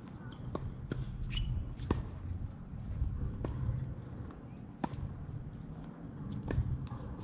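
Tennis balls being struck and bouncing on a hard court: single sharp pops, about one every second and a half, over a low steady rumble.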